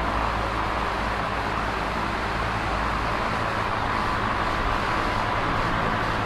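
Electric fan running steadily: an even rush of air with a low hum underneath.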